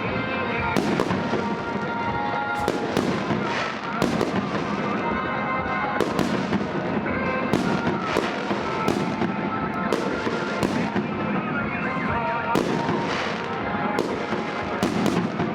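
Festive fireworks bursting one after another, sharp bangs coming irregularly about once a second over a continuous din, with music playing alongside.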